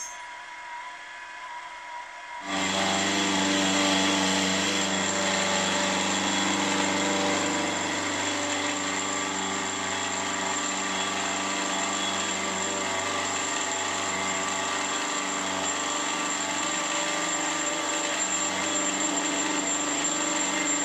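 Bench milling machine running, its end mill cutting a flat face into a brass part: a steady motor hum with a cutting hiss. It comes in abruptly about two and a half seconds in.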